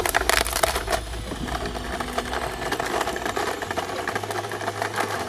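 Shredding machine grinding up a rubbery toy: a dense, rapid crackling and crunching, heaviest in the first second, then finer and steadier.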